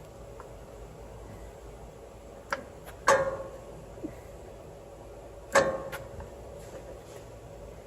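Metal clinks and knocks of brake pads and caliper hardware being worked into place. The two loudest come about three and five and a half seconds in, each with a short ring, and lighter taps fall between them.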